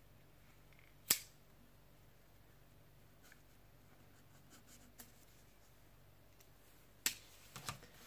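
Sharp clicks and snaps from opening a mailing tube and its packing by hand: one loud snap about a second in, a lighter click about five seconds in, and a few quick clicks near the end.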